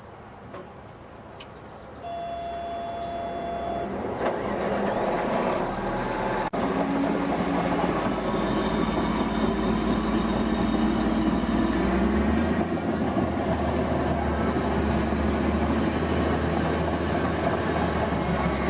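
Bulldozer's diesel engine running under load, growing louder over the first several seconds and then holding steady.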